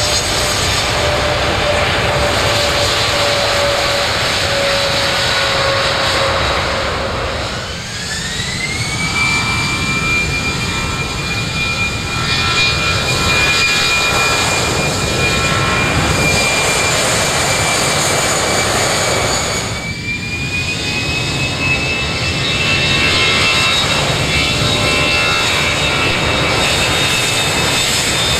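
Jet airliners rolling down the runway at takeoff thrust: a steady, loud jet roar with a high fan whine. The sound changes abruptly about eight and twenty seconds in, as a Boeing 787 with GE engines gives way to Airbus A319s, whose fan whine climbs and then holds.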